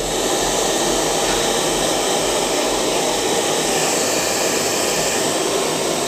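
Chaoba 2000-watt hand-held hair dryer blowing steadily on its hot-air setting, a constant rushing whir of fan and airflow.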